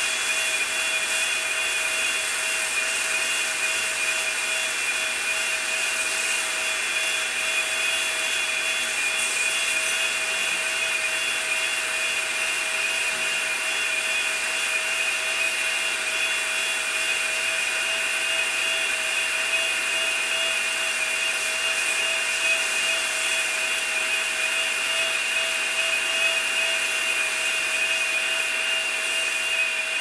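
Handheld forced-air plastic welder running steadily while welding a polyethylene patch panel onto a kayak hull: its blower gives a steady whine over an even rush of hot air.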